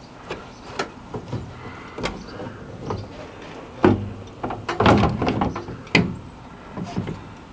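Clicks and metal knocks from a van's rear door latch and lock linkage being worked into place by hand, with a cluster of clattering knocks from about four to five and a half seconds in and a sharp knock about six seconds in.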